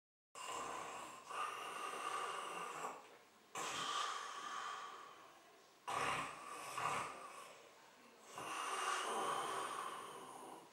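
A sleeping man's heavy, noisy breathing through mouth and nose: four long breaths in and out, one after another.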